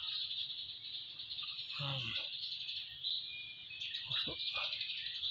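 A steady, high-pitched chorus of insects, with a few short bird chirps over it.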